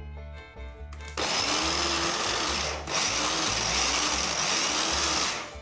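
Electric mini chopper running, blending chorizo and cherry tomatoes into a paste. It starts about a second in, stops for an instant midway, and cuts off near the end.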